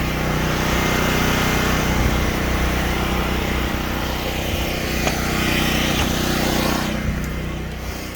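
Large portable generator engine running on propane at a steady speed, the sound thinning and falling away near the end.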